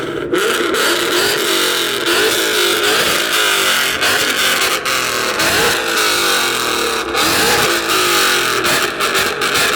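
Car engine revving hard, loud and sustained, its pitch rising and falling over and over.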